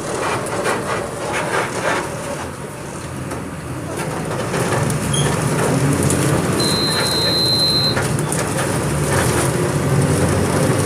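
Volkswagen 17.230 EOD city bus diesel engine running, getting louder about four seconds in as it comes under more load. A short, steady high-pitched beep sounds once a little past the middle.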